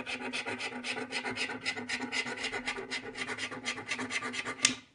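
A coin rapidly scratching the coating off a paper scratch-off lottery card, in quick, even strokes about eight or nine a second, which stop just before the end.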